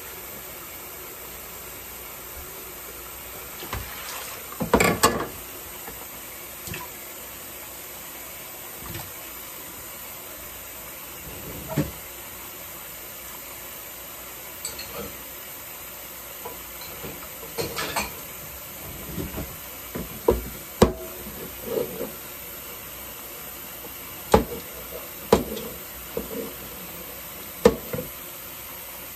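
Kitchen items being handled during cleaning: scattered knocks and short clatters, a dozen or so at uneven intervals, over a steady hiss.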